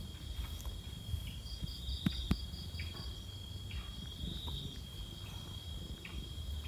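Night insects chirping: a steady high trill with a quicker pulsed chirp above it, about five pulses a second. Two sharp clicks sound about two seconds in.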